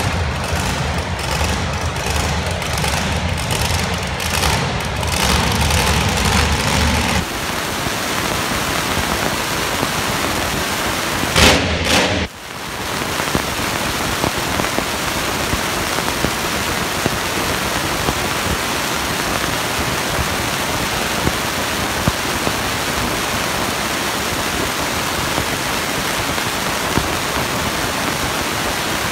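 Arena music with a heavy beat, then a monster truck's engine running loud and steady, heard as a dense even roar that fills the arena, with a brief louder burst about twelve seconds in.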